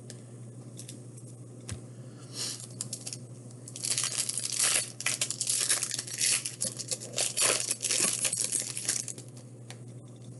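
Trading card pack wrapper crinkling and tearing as it is opened: a few light rustles, then dense crinkling from about four seconds in for about five seconds.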